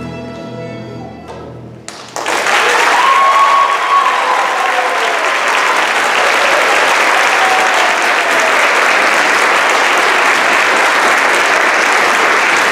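A student string orchestra's final chord dies away, then about two seconds in the audience breaks into loud applause with some cheering that keeps up steadily.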